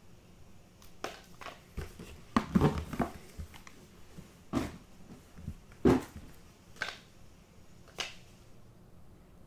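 Trading cards and their plastic holders being handled: a dozen or so short, irregular taps and rustles, loudest about two and a half and six seconds in.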